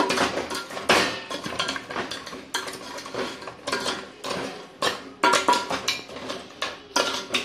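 Metal ladle stirring crab curry in a metal cooking pot, scraping and clinking against the pot's sides and bottom in irregular strokes, about one or two a second.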